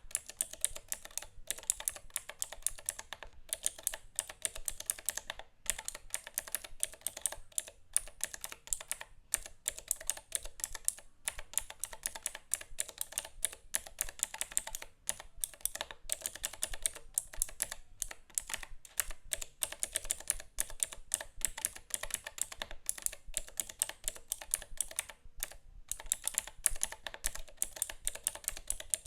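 Fast, continuous typing on a keyboard: a dense run of key clicks, broken by a few brief pauses.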